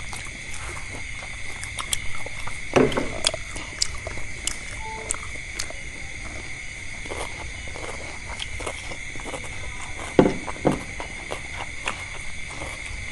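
People eating: scattered clicks and taps of chewing and utensils, a few louder ones about three seconds and ten seconds in, over a steady high-pitched tone.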